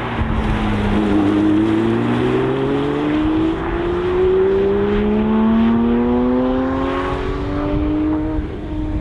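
Sports car engine accelerating hard, its pitch climbing steadily for several seconds before it drops off near the end.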